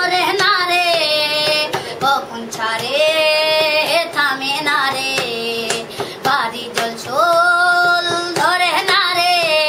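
A boy singing solo and unaccompanied, holding long notes and adding quick wavering ornaments between them, with short breaks for breath.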